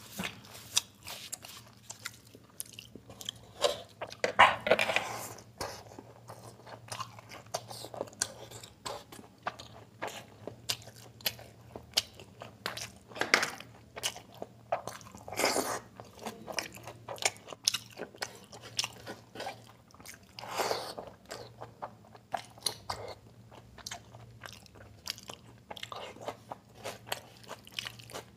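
Close-up eating sounds of a man eating mutton biryani and curry by hand: wet chewing and smacking with many quick mouth clicks, along with fingers squishing rice into gravy on a steel tray. A few louder, longer bursts of chewing come about four, thirteen, fifteen and twenty seconds in.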